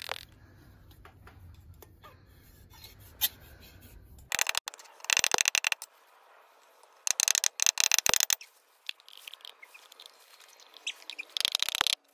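Small hammer tapping a hand-forged copper pot against an iron stake: three short runs of rapid, sharp taps, one in the middle and one near the end, with a single tap shortly before them.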